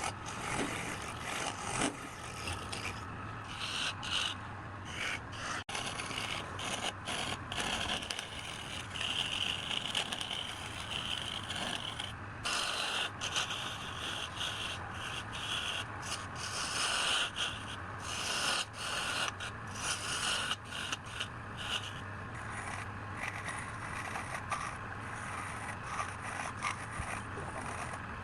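Electric wood lathe running with a steady low hum while a tool scrapes against the spinning wood in repeated, irregular passes.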